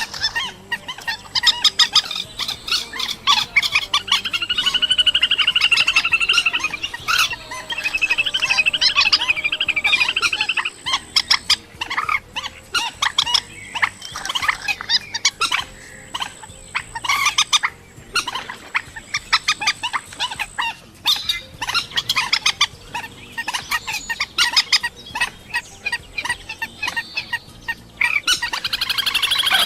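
A songbird calling continuously: rapid chattering, clicking notes mixed with warbled, trilling phrases. A faint steady high-pitched whine runs under the first two-thirds.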